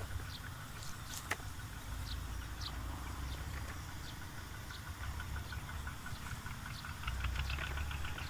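Wind buffeting the microphone as a low, uneven rumble over a rice field, with scattered short high chirps. A rapid ticking chatter starts about seven seconds in.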